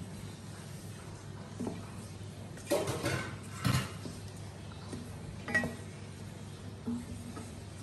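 A wooden spatula stirring a thin chilli, tamarind and palm-sugar sauce in a stainless steel saucepan, knocking against the pot now and then: about five knocks, the loudest about three and four seconds in, over a steady low hum.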